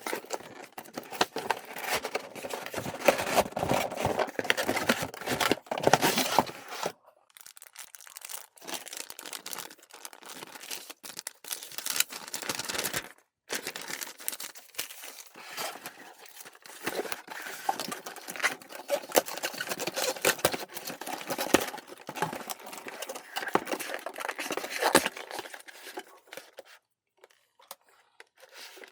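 Packaging being torn open and crinkled by hand: irregular rustling and crackling with two brief pauses.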